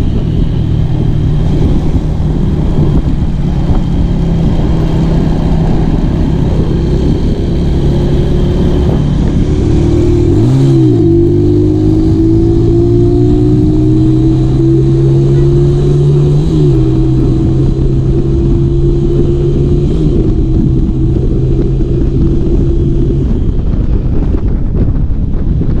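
Modified, stroked-up Honda Tiger motorcycle engine pulling hard under way, its note climbing slowly and then dropping sharply at gear changes, about ten, sixteen and twenty seconds in. Wind rush throughout; the engine note fades out a few seconds before the end.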